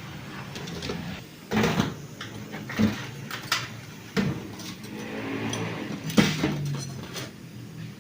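Metal clutch discs and plates from an automatic transmission knocking and clinking as they are handled and set down. About half a dozen sharp knocks come at irregular intervals, some leaving a short metallic ring.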